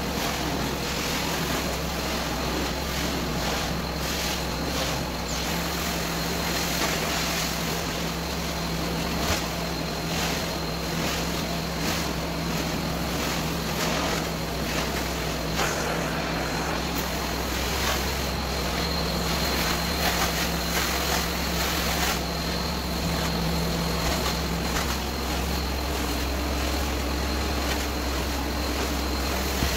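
Carpet extraction machine running steadily: the continuous suction hiss and motor hum of a hot-water extraction wand and hose cleaning carpet, with a thin high whine above it.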